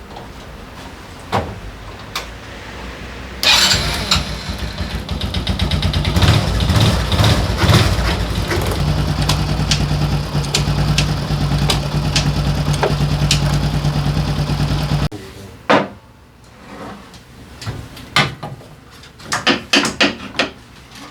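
Daelim Citi Ace 100's single-cylinder four-stroke engine starting about three and a half seconds in, running unevenly at first and then settling to a steady idle, before cutting off abruptly. A few knocks and clicks follow near the end.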